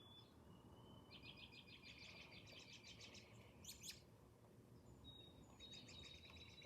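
Faint birdsong: a high steady whistled note leading into a fast trill, heard twice, over a low background hiss, with one brief click a little past the middle.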